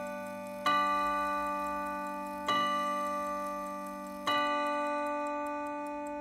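Howard Miller Thomas Tompion mantel clock's Kieninger key-wound movement striking the hour: a hammer hits the same chime rod three times, evenly about 1.8 s apart, each stroke ringing on and slowly fading. The count ends with the third stroke, leaving the ring to die away over the movement's ticking, about four ticks a second.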